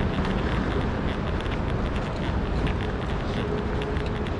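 Footsteps on a stone-tiled floor, several a second, over a steady low rumbling hum of a large station hall.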